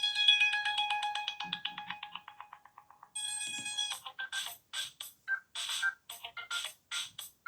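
Stock ringtones playing from a Samsung Galaxy Europa (GT-I5500) phone speaker. A fast-repeating electronic melody fades out over the first three seconds. Then the next ringtone starts with a held chord and breaks into short, rhythmic notes.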